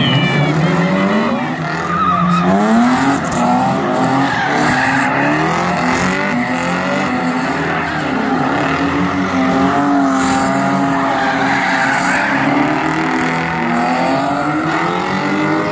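Drift cars' engines revving hard, the pitch rising and falling with the throttle, over the squeal of tyres sliding sideways.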